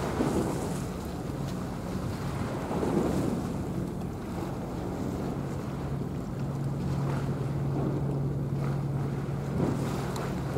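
Wind buffeting the microphone at the seaside, in uneven gusts, with waves washing underneath and a steady low hum that grows stronger past the middle.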